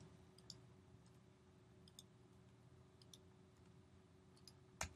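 Faint computer keyboard keystrokes, a handful of scattered clicks, the sharpest one near the end.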